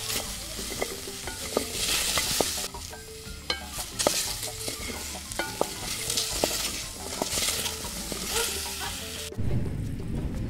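Fermented cocoa beans frying in a pot and being stirred: a sizzle that swells and fades with the stirring, with clicks of beans and spoon against the pot. It cuts off suddenly about nine seconds in.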